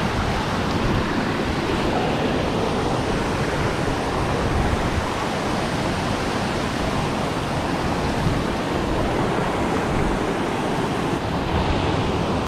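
Steady, loud rush of water cascading over rocks at a waterfall.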